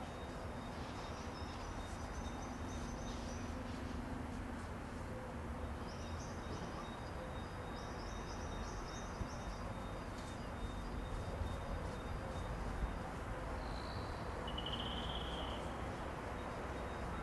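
Steady outdoor background noise with birds chirping in a few short bouts of high notes.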